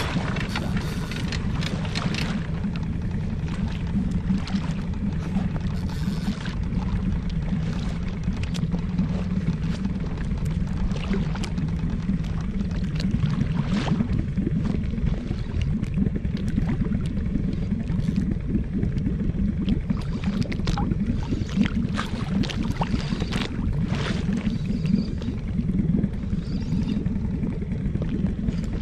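Water slapping and gurgling against an inflatable boat's hull over a steady low rumble, with scattered short knocks and clicks.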